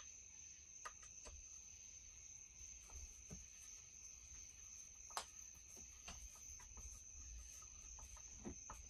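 Near silence: a few faint, scattered clicks and taps of chainsaw air-filter parts being handled and fitted, over a steady high-pitched tone.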